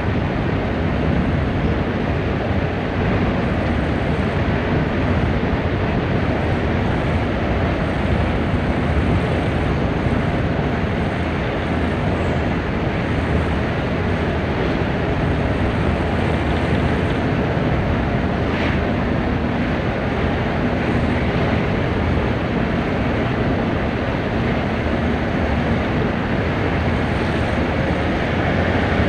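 Isuzu Elf minibus with a tuned engine driving at speed: steady engine, road and wind noise with no letup.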